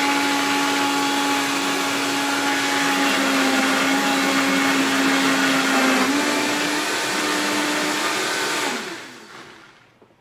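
Countertop blender running at high speed, grinding canned salmon with its bones, eggs and tapioca flour into a thick paste. The steady motor hum sags slightly in pitch for a few seconds and steps back up about six seconds in, then the blender is switched off near the end and spins down.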